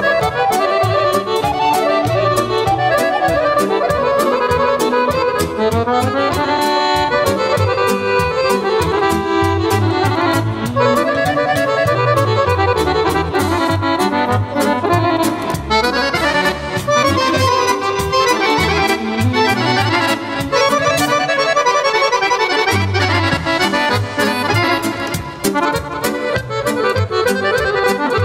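Two chromatic button accordions, one a Guerrini, and a violin playing an instrumental Serbian folk tune live in running melodic lines, over a drum kit keeping a steady beat.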